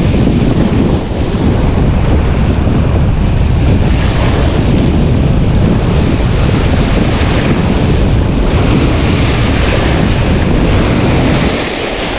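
Strong wind buffeting the microphone over the steady rush of sea waves.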